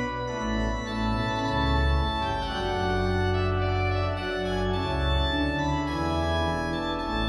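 Organ music: held chords that do not fade, over a bass note that changes every second or so.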